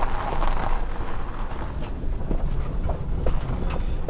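Fiat Ducato campervan driving, heard from inside the cab: a steady low rumble of engine, tyres and wind, with a few faint light clicks and rattles.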